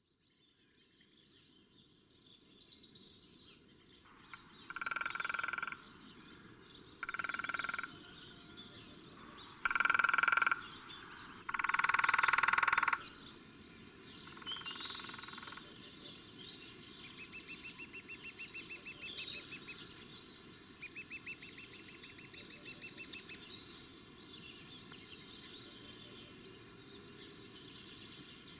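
Birds singing and calling, with chirps and quick trills throughout. Between about four and fifteen seconds in, five loud, steady calls of about a second each stand out; their source cannot be named.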